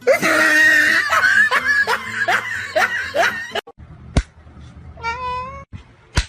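A loud, breathy run of rapid rising squeals, about two or three a second, that stops suddenly, then a single cat meow about five seconds in, with two sharp clicks around it.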